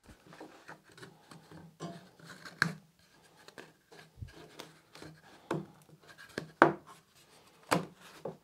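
Wooden pieces handled and fitted together by hand: irregular light knocks, taps and rubbing of wood on wood, with a few sharper knocks, the loudest about six and a half seconds in.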